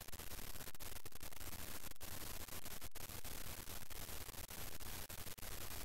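Steady static hiss with a low hum and a thin high-pitched whine, broken by many brief dropouts.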